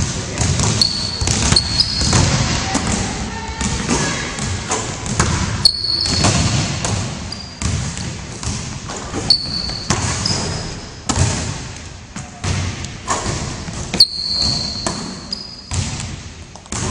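A basketball bouncing again and again on a hardwood gym floor, with short high sneaker squeaks now and then as the players cut and stop. Everything echoes in the large hall.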